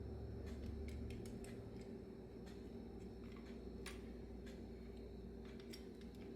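Light, scattered clicks and taps of small metal parts of a Bendix Stromberg WWC carburetor being handled and pried during teardown, one sharper tap about four seconds in, over a steady low hum.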